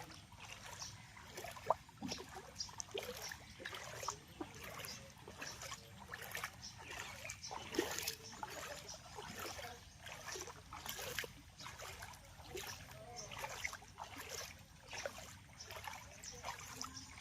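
Floodwater splashing and trickling, with quick, irregular splashes.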